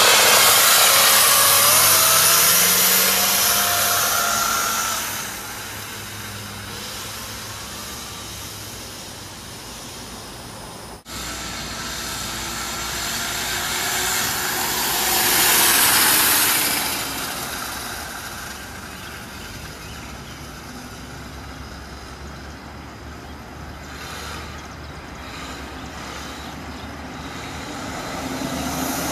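Homemade electric motorcycle riding off and passing by: a faint motor whine that glides in pitch as it pulls away, over tyre and wind noise. The noise swells to its loudest as the bike passes about halfway through, then drops back.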